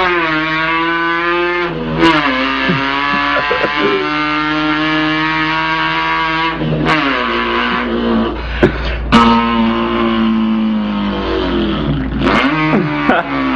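A boy imitating an import car's engine with his voice: a continuous buzzing engine note that breaks and drops in pitch several times, like an engine shifting up through the gears.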